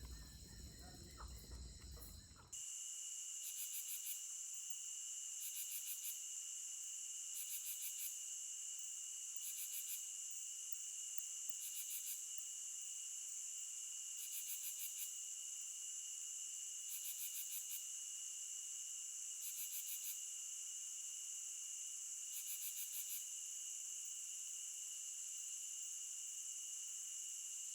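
Insect chorus of crickets: a steady high trill with a second insect giving short pulsing bursts about every two seconds. It starts abruptly a couple of seconds in, after a short stretch of other outdoor sound.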